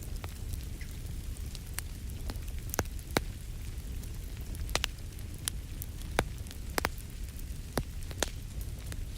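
Wood fire in a fireplace crackling: irregular sharp pops and snaps, a dozen or so, over a low steady rumble.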